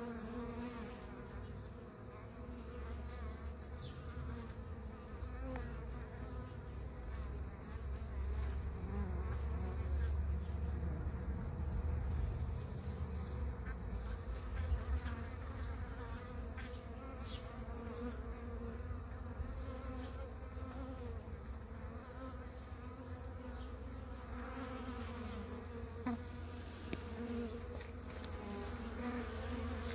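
Honeybee workers buzzing in a steady, even hum over an open hive, with a low rumble that swells for a few seconds in the middle.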